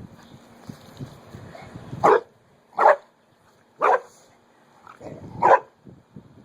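Dog barking four times, in short separate barks about a second apart, in the second half.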